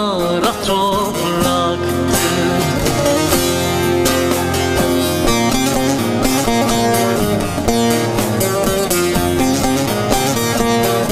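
Instrumental break in a Turkish folk song: a bağlama (long-necked saz) plucked in quick repeated notes over a Korg keyboard. A singer's held, wavering note ends just after the start.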